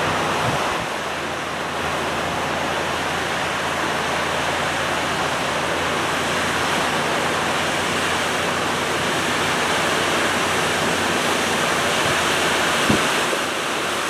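Steady rush of water pouring over a stone dam spillway.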